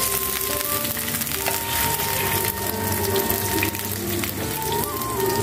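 Fish sizzling in hot fat in a frying pan, a steady hissing crackle, with background music of held notes that change pitch every second or so.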